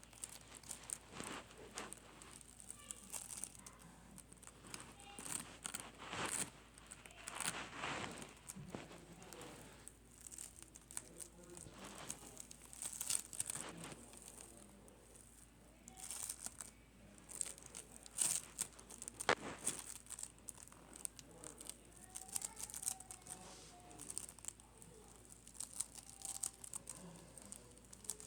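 Hands kneading and stretching slime, making irregular sticky crackles and pops with some sharper clicks.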